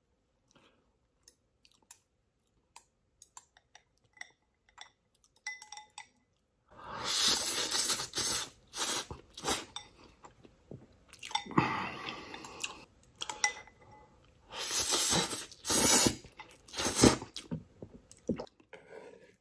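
Close-miked eating of noodles: faint clicks of chopsticks against a glass bowl, then from about seven seconds in several loud slurps and chewing, each a second or two long.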